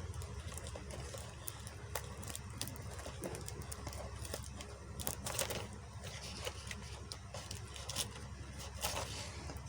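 Scattered light clicks and scrapes of small plastic packaging being handled, with a louder scrape about five seconds in and another near the end, over a steady low hum.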